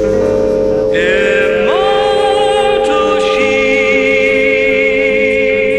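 Music with singing, laid over two steady pure tones tuned to 432 Hz and 528 Hz and a soft white-noise hiss.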